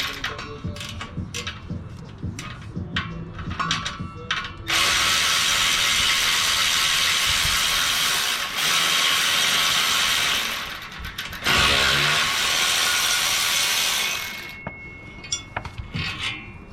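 A socket ratchet clicks in quick strokes on the exhaust header bolts. About five seconds in, a loud steady rushing noise starts and runs for about nine seconds, breaking off briefly twice. Scattered ratchet clicks return near the end.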